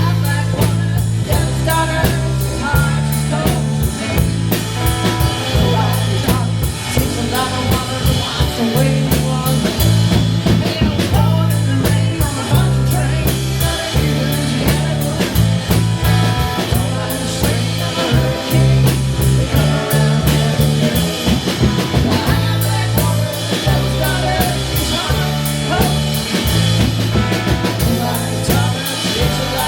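Band playing an instrumental break of a blues-rock song: guitar over a repeating bass line and drum kit.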